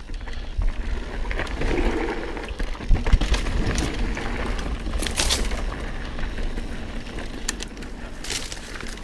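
Mountain bike rolling over a dirt trail: tyre noise and a low rumble, with scattered clicks and rattles from the bike and two brief hissy bursts.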